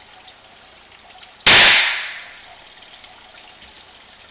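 A flintlock paintball pistol firing a First Strike round: a single sharp shot about a second and a half in, with a short fading tail.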